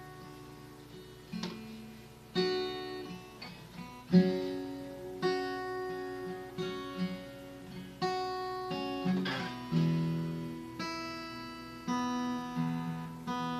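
Acoustic guitar intro: strummed chords, each ringing out and fading before the next, a new chord every second or so.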